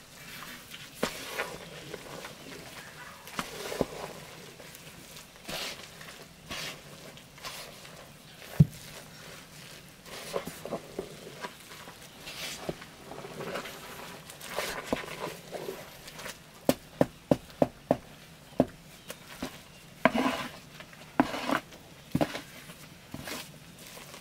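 A wooden stick stirring a steaming metal cauldron of chopped plant mash: wet scraping and shuffling, with sharp knocks of the stick against the pot. One loud knock comes about nine seconds in, and a quick run of knocks about eighteen seconds in.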